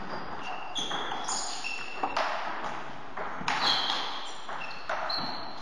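Table-tennis ball being struck by bats and bouncing on the table: a handful of sharp, irregularly spaced clicks, some with a short high ping, echoing in a large hall.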